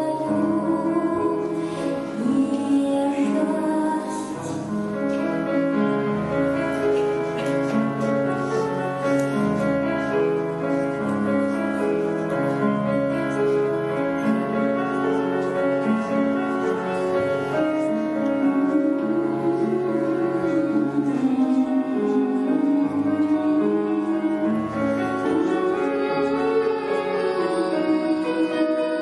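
A young female singer's voice singing a song with long held notes through a microphone, accompanied by a grand piano. Around the middle the voice drops out while the piano plays on, and the singing returns later.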